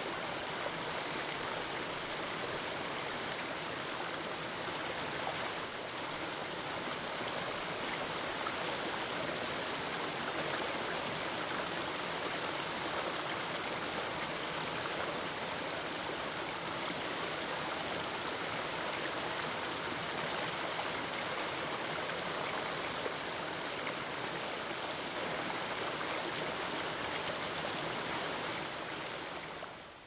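Steady rush of a forest stream, water running continuously over rocks, cutting down sharply at the very end.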